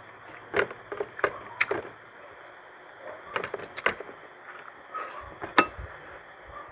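Close-up eating sounds from people eating squid adobo and rice: a series of short wet smacks and clicks of chewing and mouth noises, the sharpest a little past halfway.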